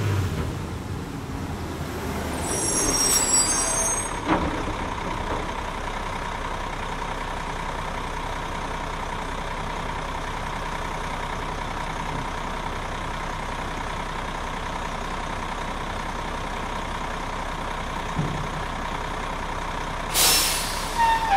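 Garbage truck running with a steady whine as it tips its load of trash out onto the floor. A brief high squeal comes about three seconds in, with a knock just after, and a loud burst of air hiss near the end.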